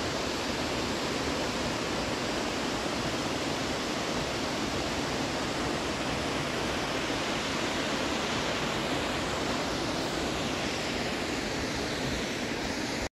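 Fast-flowing water rushing steadily, cut off suddenly near the end.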